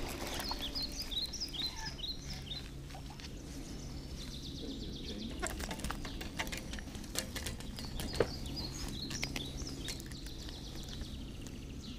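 Small birds chirping in short repeated calls, with scattered clicks and taps from the fishing rod, reel and line being handled. A steady low hum sets in about three seconds in.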